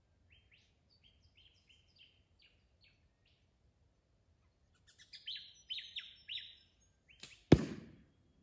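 Wild birds chirping in short repeated calls, louder about five seconds in; near the end an arrow strikes the cardboard target butt with one sharp, loud thud.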